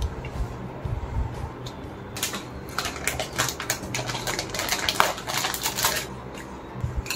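A foil-lined Lay's potato chip packet crinkling and crackling as it is pulled open and handled. The crackling starts about two seconds in and stops about six seconds in.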